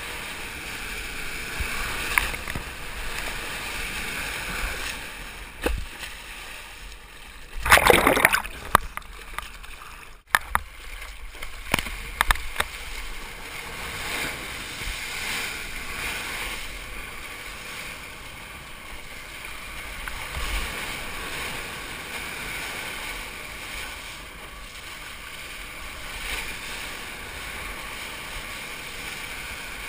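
Ocean water rushing and spraying past a GoPro camera as a surfer rides a small wave, a steady wash of water noise. There is one loud splash about eight seconds in, then a few sharp knocks shortly after.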